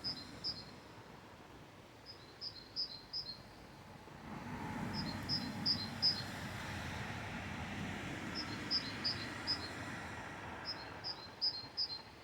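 A songbird repeats a short phrase of four or five quick high notes about every two to three seconds. A car passes in the middle; its engine and tyre noise swells and then fades.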